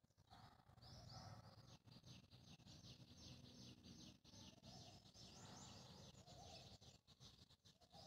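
Songbird chirping faintly in a quick run of short high notes, about five a second, for several seconds, over a low background rumble.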